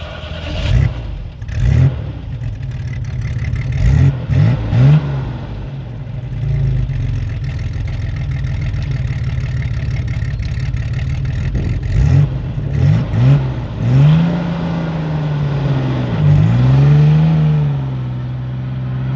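Off-road vehicle engine revving in short repeated blips over a steady running note, then held higher for several seconds near the end, its pitch rising and falling as it works on the dirt trail, before dropping back.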